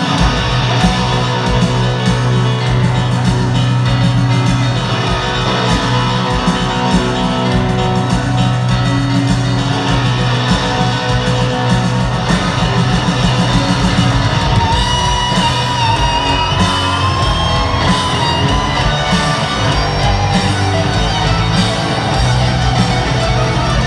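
A live rock band playing an amplified arena performance: an electric guitar carries a sustained lead melody that climbs about halfway through, over a steady band and grand piano, with the echo of a large hall.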